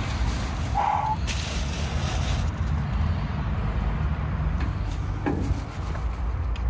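Aluminium foil crinkling and rustling as a gloved hand shifts a foil-wrapped package on a steel smoker grate, with a few light clicks, over a steady low rumble.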